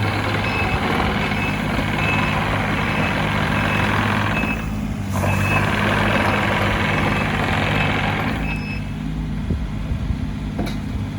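Takeuchi TB230 mini excavator's diesel engine running under load, with a travel alarm beeping about twice a second while the machine moves. About eight and a half seconds in, the beeping and the working noise stop and the engine runs on more quietly.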